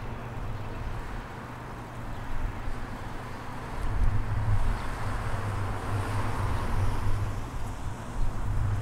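Wind buffeting the microphone in uneven gusts, with road traffic noise that swells from about four seconds in, as a car passing on the harbourside road.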